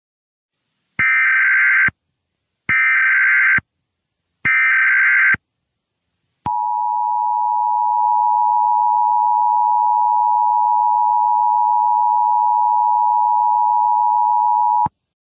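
Emergency Alert System alert tones: three one-second SAME header data blasts with short gaps between them, then the steady two-tone EAS attention signal held about eight seconds and cut off suddenly, as it sounds at the start of a severe thunderstorm warning.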